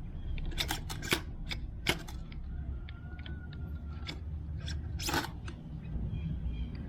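Scattered sharp clicks and knocks of plastic and metal parts being handled while a string trimmer's attachment shaft is worked into its coupler, with a brief rustling scrape about five seconds in. A steady low hum runs underneath.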